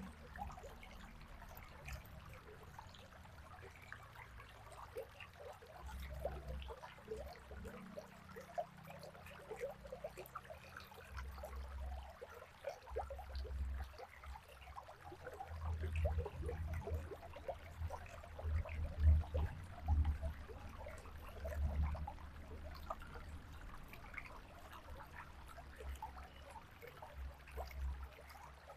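River water trickling and gurgling, with many small bubbly splashes throughout. Low rumbling bursts come and go, loudest a little past the middle.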